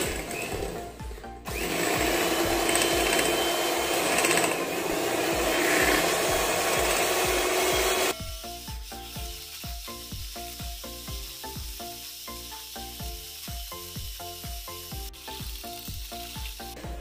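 Philips electric hand mixer running, its beaters whisking powdered mousse mix and milk in a glass bowl: a steady motor whir from about a second and a half in, which drops sharply about eight seconds in, leaving background music with a steady beat.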